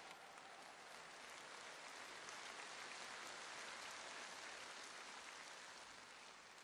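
Faint audience applause, an even patter of many hands that swells slightly and then eases off near the end.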